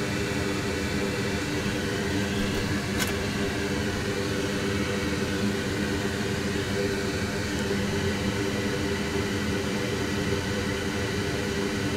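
Steady hum of bench fan equipment, such as a fume extractor or hot-air station blower, running at a constant pitch. A single sharp click sounds about three seconds in.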